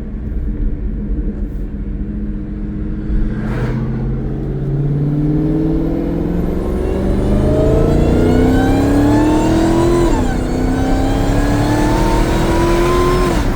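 Supercharged 6.2-litre HEMI V8 of a Dodge Challenger Hellcat Redeye with Corsa Xtreme exhaust accelerating hard, its engine note and supercharger whine climbing in pitch. The pitch drops sharply at an upshift about ten seconds in, then climbs again until a second upshift at the very end.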